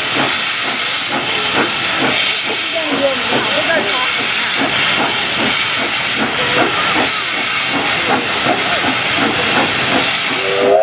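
Steam locomotive getting under way with its cylinder drain cocks open, giving a loud, steady hiss of escaping steam. Just before the end its chime whistle starts to sound, a chord of several steady notes.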